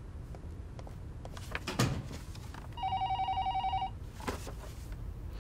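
Desk telephone ringing once, an electronic warbling trill lasting about a second in the middle, with paper rustling from magazine pages being flipped before and after it.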